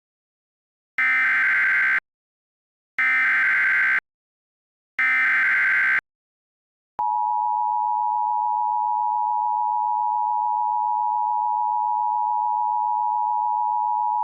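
Emergency Alert System tones: three one-second bursts of SAME digital header data a second apart, then the steady two-tone attention signal (853 and 960 Hz) starting about seven seconds in. Together they announce a broadcast emergency alert, here a severe thunderstorm warning.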